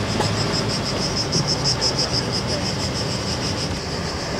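Car driving slowly, heard from inside the cabin as a low, steady engine and tyre rumble, with insects, likely cicadas, in the pine trees outside giving a high, rapid, evenly pulsing buzz over it.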